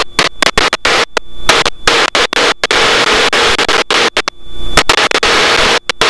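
Loud crackling static hiss on the cockpit intercom and radio audio, chopping off and back on abruptly many times, as on a broken-up radio feed.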